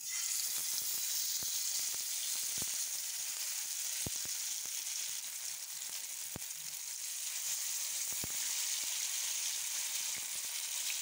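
Masala-marinated sheela (barracuda) fish frying in hot oil in a pan: a steady sizzle that starts as the fish goes into the oil, with a few sharp pops.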